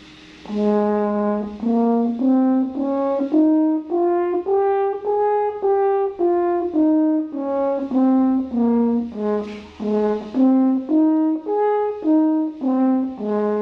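French horn playing a one-octave E-flat major scale in separate notes, starting on a held low note, climbing to the top and coming back down, then running up and down again to end on a held low note.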